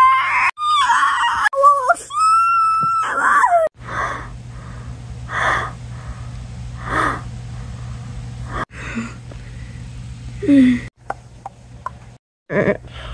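A voice giving high, wavering screams for the first few seconds, then a run of breathy gasps about every second and a half over a steady low hum.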